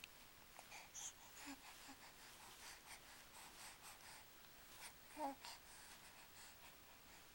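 Near silence with faint scattered clicks and rustles, and one brief soft vocal sound about five seconds in.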